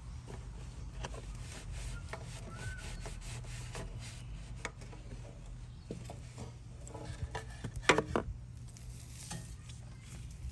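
Hand-handling noises around a pressure washer pump's oil drain: a towel rubbing, with scattered light taps and clicks and one sharper click about eight seconds in, over a steady low hum.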